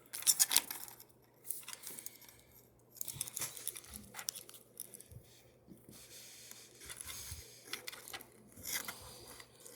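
Adhesive tape being peeled and crinkled off a phone battery. It comes in short scratchy rips and rustles, loudest at the start, mixed with light handling of small parts.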